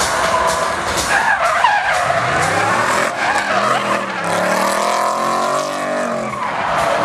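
BMW E30 drift car sliding sideways with its tyres squealing and smoking, the engine held high in the revs, its pitch rising and falling as the throttle is worked.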